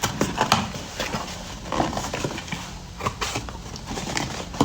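A cardboard box and its packaging being handled and opened by hand: an irregular series of clicks, taps and knocks with rustling between them.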